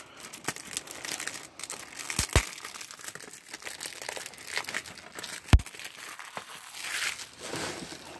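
Plastic wrap crinkling and a security sticker being peeled off a plastic DVD case, an irregular crackle with a few sharp clicks, the loudest about halfway through.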